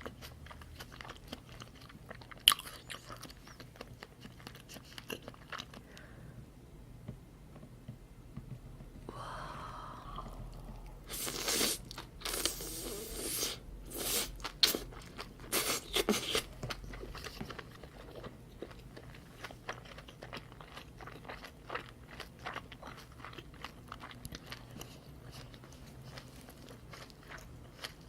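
Close-miked eating sounds of salmon sashimi and salmon rolls being bitten and chewed, with many small wet mouth clicks, louder for a few seconds around the middle.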